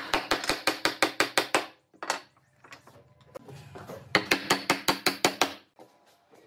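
Quick, even series of sharp taps, about seven or eight a second, in two runs of roughly a second and a half each, with a single tap between them.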